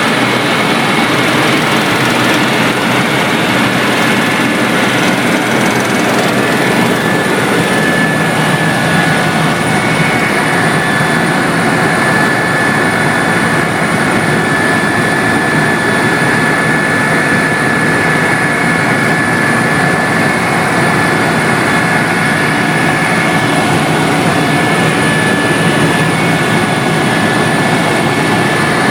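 Tour helicopter's engine and rotor running steadily in flight, a constant loud noise with a thin high whine over it that holds for the whole stretch.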